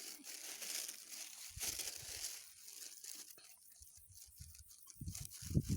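Crinkly, crackling noise with many small ticks, and low rumbling bumps that come in about a second and a half in and grow stronger near the end.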